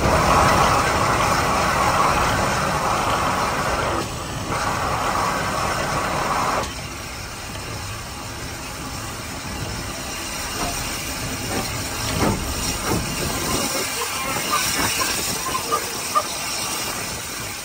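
Steam hissing loudly from the LSWR T3 class 4-4-0 steam locomotive 563. The hiss breaks off briefly about four seconds in and stops at about six and a half seconds. After that the locomotive runs along the line more quietly, with scattered clicks and knocks near the end.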